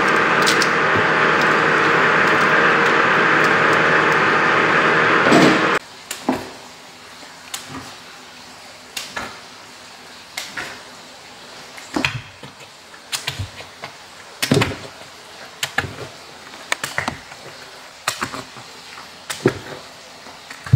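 Steady factory machinery hum that cuts off about six seconds in, then a long wooden poking stick worked into squid shiokara in a wooden fermenting barrel: irregular knocks and thuds roughly once a second as the mix is stirred to work air into it.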